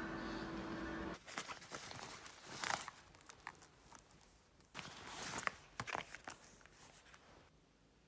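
Shrink-wrapped video game cases handled and set down on a bed: crinkling of the plastic wrap and light clicks of the cases, in two short clusters. The first second is shop ambience with a steady hum that cuts off suddenly.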